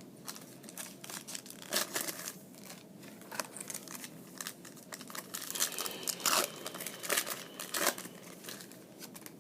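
Trading-card pack wrapper crinkling and tearing as it is handled and ripped open, in irregular sharp crackles.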